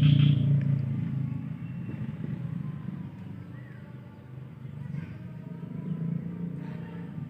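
A low engine rumble, loudest at the start and fading over the first couple of seconds, then carrying on more faintly with a couple of faint ticks.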